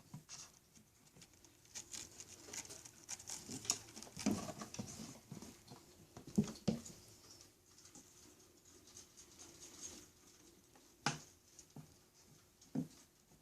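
Small pets scrambling and scratching about on a kitty condo: light scattered pattering and scuffling, busier in the first half, with a sharp knock about eleven seconds in and another near the end.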